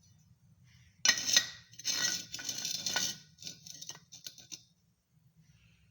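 Metal pieces clattering and clinking against one another in several quick rattles, then a few sharp separate clinks before it stops.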